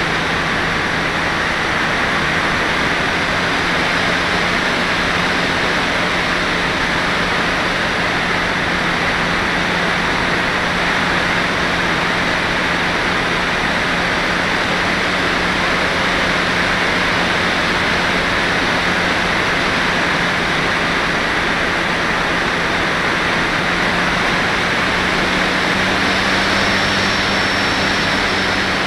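Steady rush of airflow over a model glider's onboard camera in flight, with a faint low steady hum beneath it.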